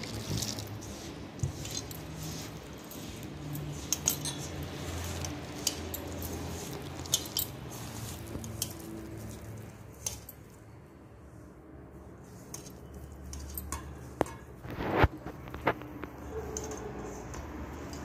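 A hand mixing and squeezing ragi flour dough in a metal bowl, with scattered small clinks and taps against the bowl, the sharpest about fifteen seconds in, over a low steady hum.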